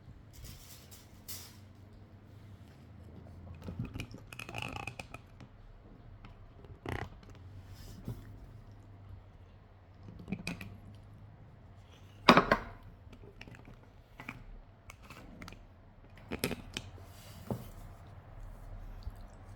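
A person eating stir-fried noodles: chewing, with scattered clicks and knocks of cutlery on the plate, the loudest knock about twelve seconds in.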